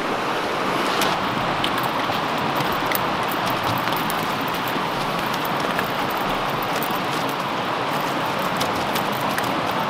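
Steady rush of a river running over rocky rapids, with small light clicks over it.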